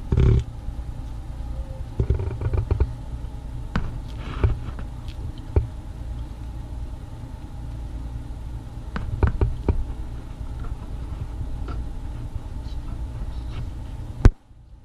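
Handling noise from a handheld camera held against a wire-mesh cage: a steady low rumble with scattered soft clicks and knocks, and one sharp click near the end.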